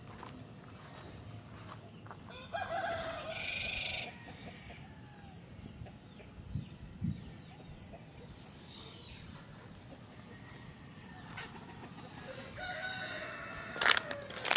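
A rooster crowing twice, once about two and a half seconds in and again near the end, each crow lasting about a second and a half. A sharp knock near the end is the loudest sound.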